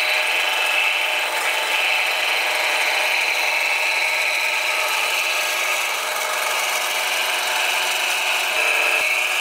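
Plastic pelletizer running: its ribbed roller and cutter turn with a steady high whine over a continuous rasping noise as plastic is chopped into pellets.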